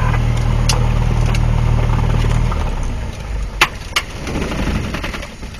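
Cessna 172P's four-cylinder Lycoming O-320 engine idling steadily, then cutting out about halfway through as the engine is shut down, its drone dying away. Two sharp clicks follow.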